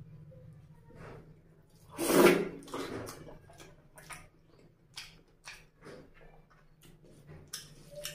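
Close-up mouth sounds of a person eating rice and mutton curry by hand: a loud wet mouthful about two seconds in, then chewing with short sticky smacks and clicks about twice a second. A faint low hum runs underneath.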